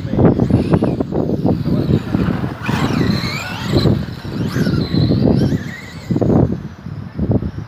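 Electric RC monster truck's motor whining, rising and falling in pitch as the truck drives close by, from about three seconds in. Wind rumbles on the microphone throughout.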